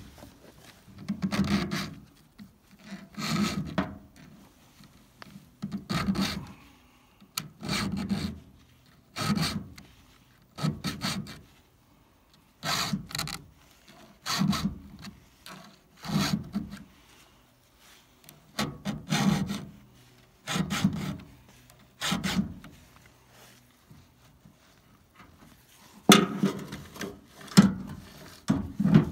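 Round chainsaw file stroked by hand across the cutting teeth of a Stihl chainsaw chain to sharpen it: one filing stroke roughly every one and a half to two seconds, a pause of a few seconds about three quarters through, then several quicker strokes near the end.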